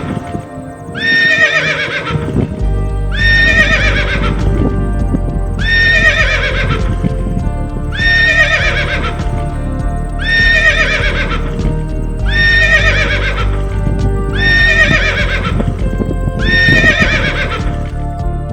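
A horse whinnying: the same falling neigh repeats about every two seconds, eight times, over background music.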